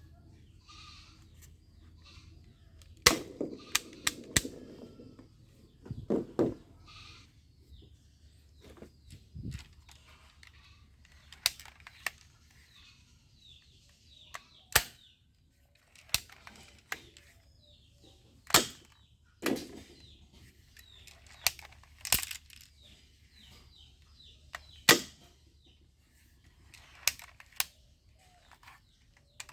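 Toy guns being handled and worked: sharp plastic clicks and snaps at irregular intervals, with a short rattle among the first few.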